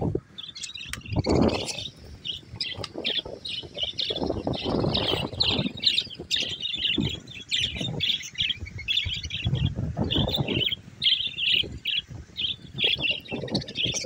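A flock of budgerigars chattering, many short chirps overlapping without a break. Intermittent low rustling bursts run underneath.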